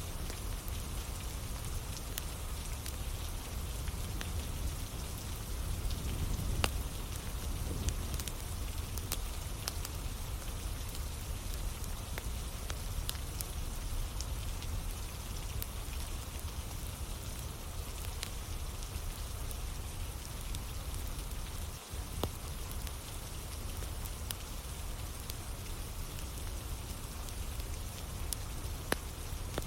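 Steady rain falling, mixed with a wood campfire burning, with scattered sharp crackles and pops.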